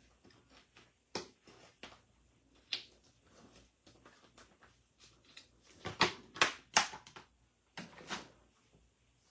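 Light, scattered clicks and taps of thin metal cutting dies being handled and set down over stamped cardstock on a mat, with a quick run of three sharper clicks about six seconds in.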